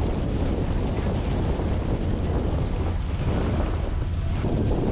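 Wind buffeting the microphone over the low, steady running of a sightseeing boat under way on the lake.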